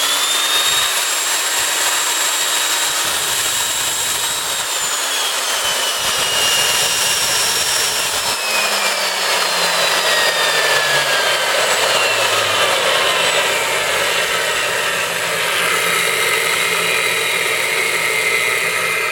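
Milwaukee 4210 magnetic drill press motor running in reverse: a high whine that spins up at the start, holds steady for a few seconds, then falls steadily in pitch as the variable speed is turned down.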